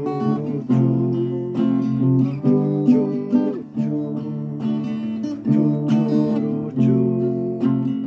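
Acoustic guitar strummed in a steady rhythm, with the chord changing every second or two.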